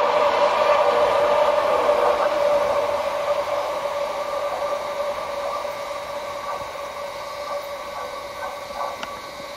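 Train of empty Hoki 800 hopper wagons hauled by an ED75 electric locomotive rolling away on the rails. A steady high ringing tone sits over the rolling noise, and the whole sound fades gradually from about three seconds in as the train recedes.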